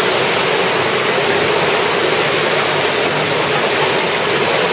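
Steady rush of water from an underground cave stream, an even, unbroken noise.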